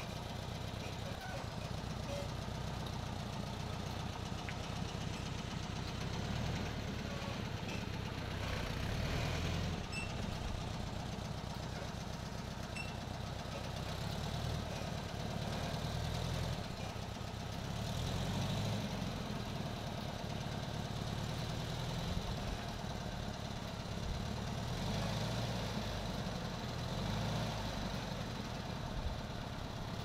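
A 1975 Volkswagen Type 2 bus's air-cooled flat-four engine running at low revs as the bus creeps slowly forward, swelling a little in level now and then.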